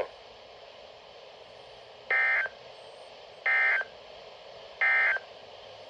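Three short bursts of warbling digital data tones: the Emergency Alert System (SAME) end-of-message code closing a weather radio alert. Each burst lasts under half a second, and they come about a second and a half apart over faint radio hiss.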